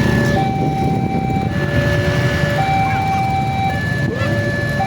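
Railway level-crossing warning siren sounding a two-tone alternating signal, switching between a higher and a lower steady tone about once a second: the alarm that a train is approaching and the crossing gate is closing. Road traffic rumbles underneath.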